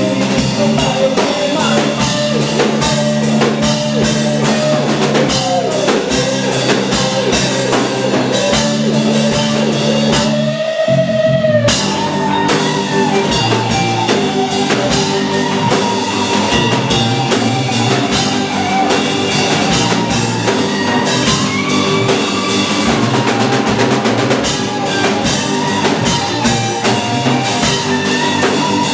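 Live rock band playing: drum kit, electric guitar and keyboard. About ten seconds in, the drums and low end drop out for a second under a held note that bends upward, then the full band crashes back in.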